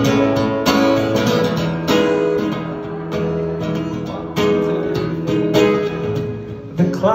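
Solo acoustic guitar, chords strummed and picked with a fresh stroke every half second to second and the notes ringing on between strokes.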